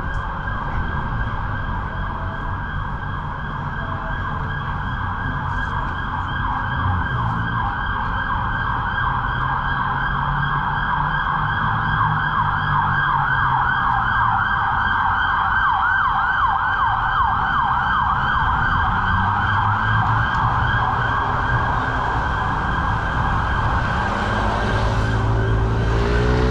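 Emergency vehicle siren wailing in fast, repeated rising and falling sweeps, growing louder toward the middle and fading out near the end, over the steady rumble of city traffic.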